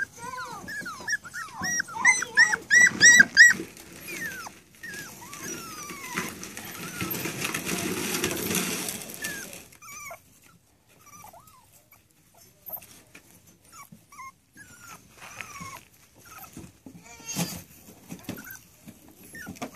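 Rat terrier puppies whimpering and yelping, with a quick run of high, short cries two to three seconds in, the distress of a puppy whose leg is stuck in the wire pen. A stretch of rustling noise follows in the middle, then only occasional faint whimpers.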